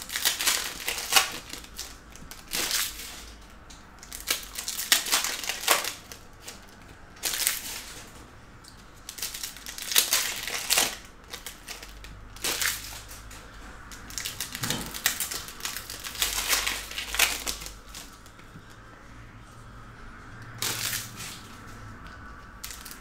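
Foil trading-card pack wrappers crinkling and tearing as packs are opened by hand, in short repeated bursts every couple of seconds.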